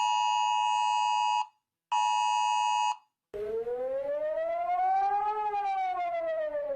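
Emergency alert alarm: two steady two-tone blasts, the first about two seconds long and the second about one, then a siren wail that rises for about two seconds and falls again.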